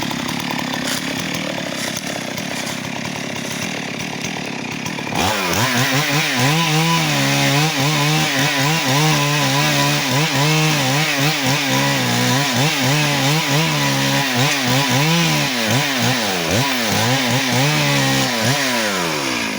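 Two-stroke chainsaw that opens up suddenly about five seconds in and runs at full speed cutting teak wood. Its pitch wavers up and down under load, and it winds down with a falling pitch near the end.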